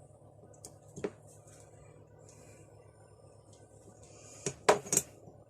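Metal tools being handled on a workbench: one knock about a second in, then three sharp clinks close together near the end, over a faint steady hum.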